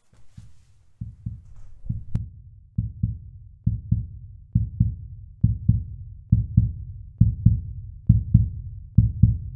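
Outro music with a heartbeat-like bass pulse: paired low thumps about once a second, growing louder as it goes.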